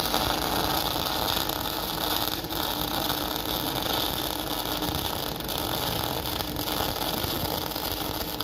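CO2 (MIG) welding arc, a steady crackling sizzle held without a break as a bead is run.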